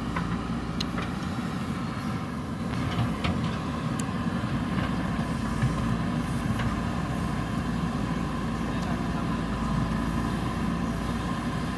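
A JCB backhoe loader's diesel engine running steadily, with a few sharp clicks.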